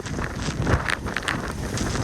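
Typhoon-force wind buffeting the microphone, a heavy low rumble broken by irregular gusts.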